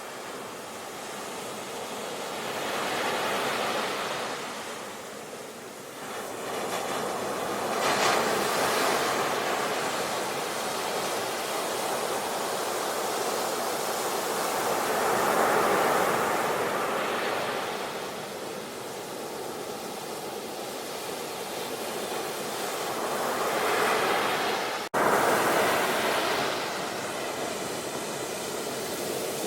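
Ocean waves breaking and washing up, the surf swelling and fading several times. The sound drops out for an instant about three quarters of the way through.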